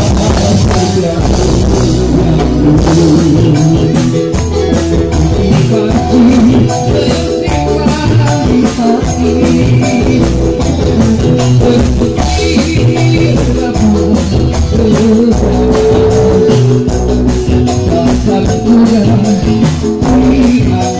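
Live band music with singing over drums and electric guitar, loud and steady throughout.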